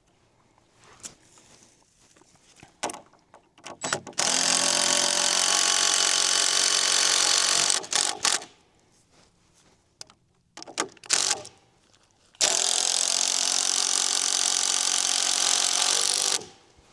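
Power drill driving screws through a 2x6 floor joist into a fascia board, in two steady runs of about four seconds each, the second starting a little past halfway. Short blips of the trigger come before each run.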